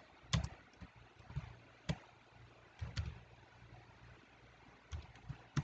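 Scattered keystrokes on a computer keyboard, about eight separate clicks at uneven spacing over a faint low hum.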